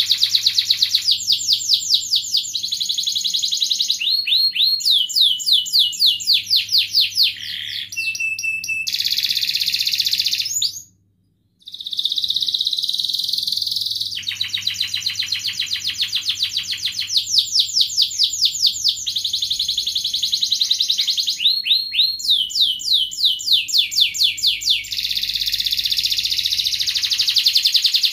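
Domestic canary singing a long, loud song of fast trills, rolls and repeated chirps, breaking off briefly about eleven seconds in. The song runs over a faint steady low hum.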